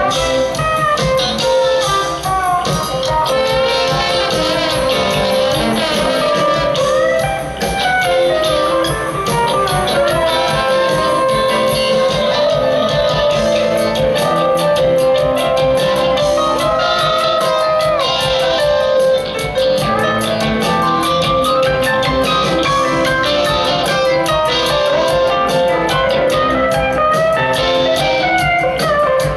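Live rock band playing an instrumental passage, with a Williams pedal steel guitar taking the lead in sliding, bending notes over steady drums.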